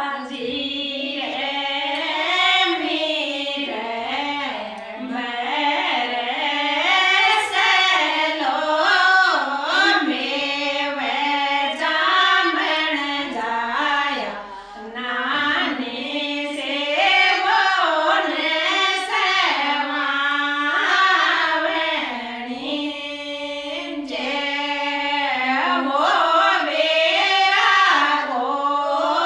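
A group of women singing a traditional Rajasthani mayra (bhaat) wedding song together, in a continuous wavering melody with no instruments standing out.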